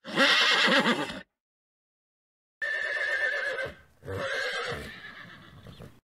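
Horse whinnying, three calls. The first is loud, with a quavering pitch; after a short pause two more follow almost back to back, the last fading out.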